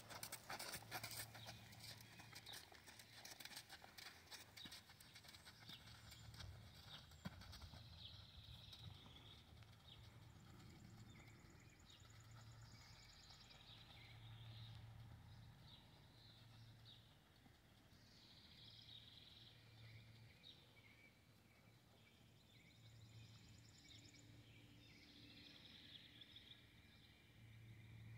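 Faint hoofbeats of a horse moving on sand arena footing, clearest over the first few seconds and fading as the horse moves off, with faint bird chirps behind.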